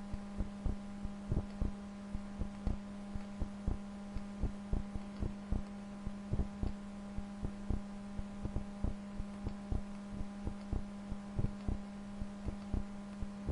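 Computer mouse clicking at an irregular pace, about two or three clicks a second, over a steady low electrical hum.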